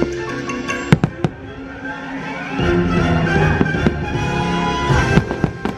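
Fireworks show with its orchestral soundtrack playing loudly, and two sharp firework bangs about a second in.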